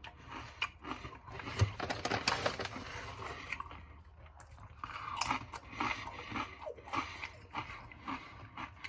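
A person chewing Doritos tortilla chips with irregular crisp crunches that ease off briefly near the middle and then pick up again.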